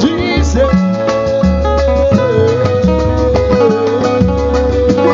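Samba band playing a pagode: plucked strings over a steady, repeating bass and percussion rhythm, with one long held note through most of the stretch.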